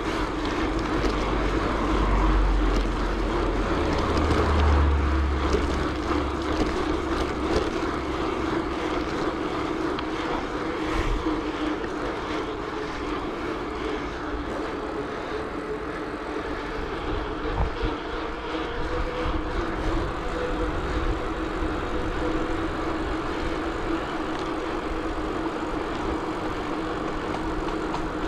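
Bicycle in motion: a steady drone of tyres and road noise with a constant hum, and wind rumbling on the microphone for several seconds near the start.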